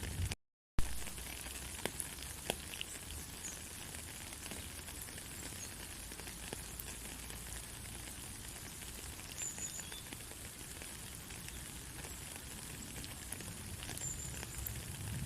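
Steady rain, an even hiss with scattered drop clicks. The sound cuts out for a split second near the start and comes back with a sharp click.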